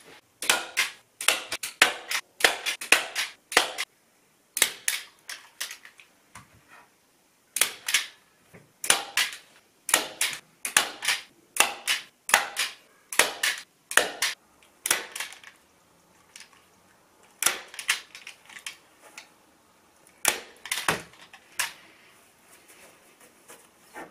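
DeWalt staple gun firing staples through velvet fabric into the wooden headboard frame. The sharp shots come in a quick irregular run, about two a second, then only now and then after about 15 seconds.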